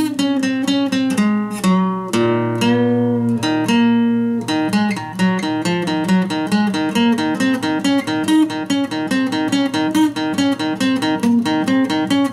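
Solo acoustic guitar improvising. It plays a few slower picked notes, then about four and a half seconds in breaks into a quick, even run of picked notes.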